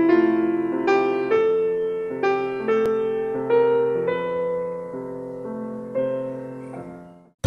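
Background music: a keyboard, piano-like in tone, playing slow, gentle chords one after another, each struck and left to ring. It fades away and stops just before the end.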